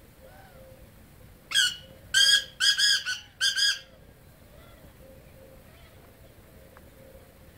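Black francolin calling: one loud, harsh phrase of about five grating notes over about two seconds, starting a second and a half in.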